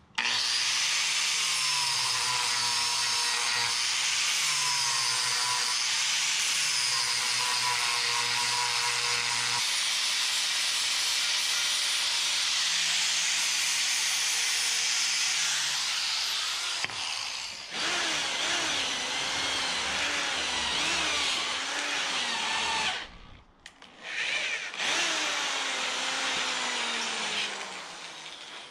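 Angle grinder with an abrasive disc running against a wooden 2x4, sanding it down. The motor's whine wavers as the disc is pressed into the wood, with two brief pauses late on.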